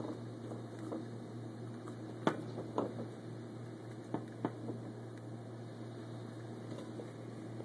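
Muffled rush of dust-storm wind heard from indoors over a steady low hum, with four sharp clicks, a pair just after two seconds in and another pair just after four.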